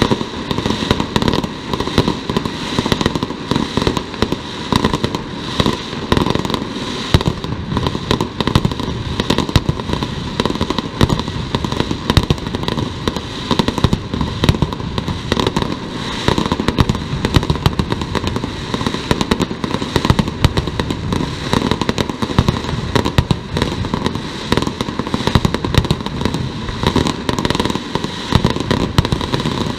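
Mascletà: a dense, unbroken barrage of firecrackers going off in rapid succession, sharp bangs overlapping so closely that they run together into one continuous rattling din.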